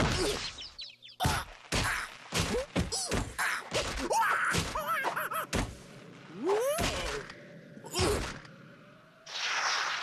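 Cartoon slapstick sound effects: a rapid series of whacks and thuds, with short yelping cries that glide up and down in pitch between the hits.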